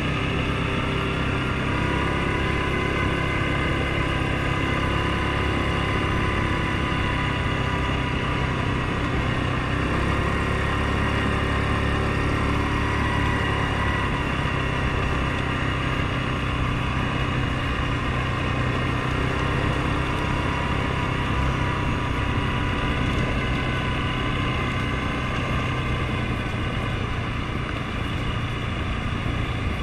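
Suzuki King Quad 750 ATV's single-cylinder engine running under way at a steady pace, its note rising and falling slightly with the throttle, over tyre noise on gravel.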